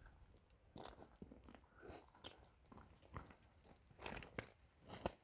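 Faint footsteps crunching on crushed-stone ballast and dry weeds, a step about once a second.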